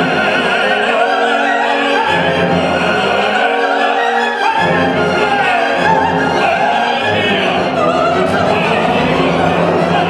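Tenor and soprano singing opera over a full orchestra, the voices loud and rising above the strings.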